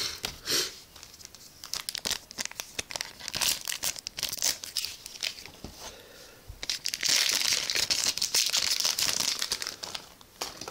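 Foil trading-card booster pack wrapper crinkling and being torn open, with crackles throughout and a louder, longer stretch of tearing and rustling about two-thirds of the way in.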